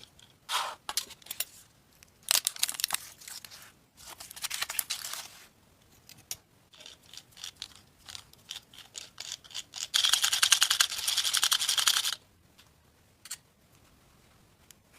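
Short bursts of rasping, scraping noise made of rapid small strokes. The longest and loudest burst lasts about two seconds, starting about ten seconds in.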